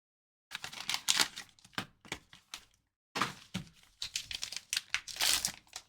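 Trading cards and their hard plastic graded-card cases being handled: quick clicks, taps and rustles in two spells of about two seconds each.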